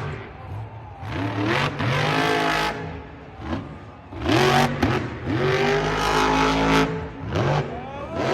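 Vehicle engine revving hard in three surges, its pitch climbing at the start of each, with quieter drops in between.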